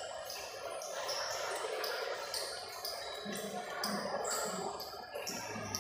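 Footsteps on a hard tiled floor at a brisk walking pace, about two and a half steps a second, over the steady murmur of people in a large indoor concourse.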